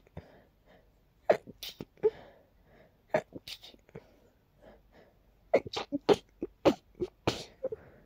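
A person sneezing softly again and again, with a quick run of sneezes in the second half. The sneezing is set off by dust.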